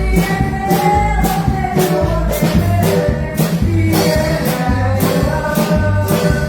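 Keyboard-led song music with a steady percussion beat, a repeating bass line and a held melody.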